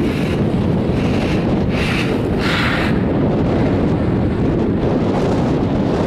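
Strong wind buffeting the microphone on an open chairlift: a loud, steady low rumble, with a few brief higher hisses in the first half.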